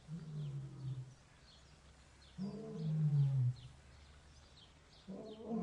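Lion roaring: three long calls, each falling in pitch, about two and a half seconds apart.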